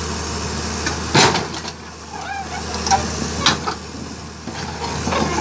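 Komatsu PC200-7 excavator's diesel engine running steadily under load as the machine crawls up the ramp of a self-loader truck, with a hiss over it. There is one loud sharp knock about a second in and a few lighter knocks a couple of seconds later.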